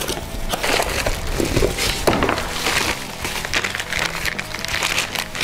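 A long cardboard shipping box being torn open and unpacked: irregular tearing and crackling of cardboard, with plastic wrapping crinkling and rustling as the part inside is pulled out.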